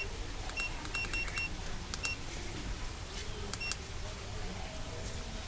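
Short, high-pitched electronic beeps, about seven, irregularly spaced and bunched in the first two seconds with one more near four seconds, over a low steady hum.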